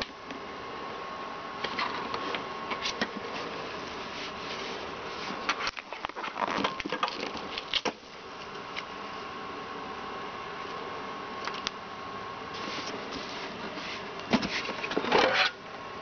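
Hands handling a plastic cool-mist humidifier: plastic rubbing, clicking and knocking against its tank and base in two bursts, about midway and near the end, over a steady hum.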